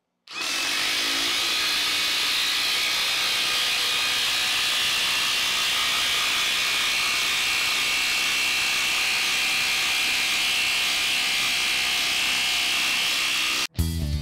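Ridgid R86012 18V brushless 1/2 in. mid-torque impact wrench hammering steadily as it drives a lag screw into wood. It runs without a break for about thirteen seconds and stops abruptly near the end.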